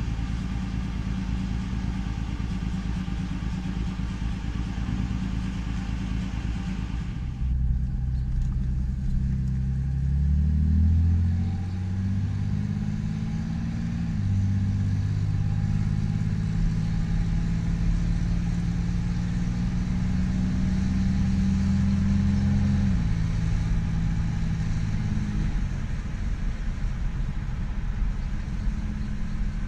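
A 1975 Ford Granada XL's engine heard from inside the cabin while the car is driven. It runs steadily at first. About a quarter of the way in the note drops lower, then rises as the car accelerates and steps down twice in quick succession around the middle, as in gear changes. It holds a steady cruise and drops again about three quarters of the way in.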